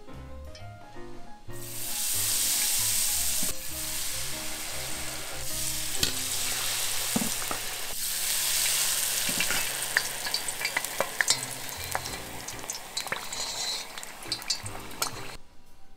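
Tempura batter frying in hot oil in a pan: a steady sizzle that starts about a second and a half in, with many scattered pops and crackles, stopping suddenly shortly before the end.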